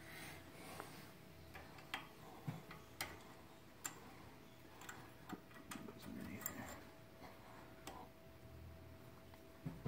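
Irregular small metallic clicks and taps, a dozen or so spread out: the pad-retaining pins and hand tools being handled and fitted back into a Brembo-style front brake caliper.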